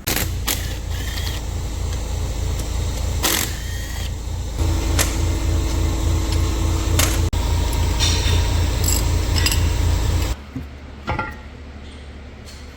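A steady low machine rumble with a regular pulse, overlaid with sharp metallic clicks and clanks of tools on metal, cutting off suddenly about ten seconds in.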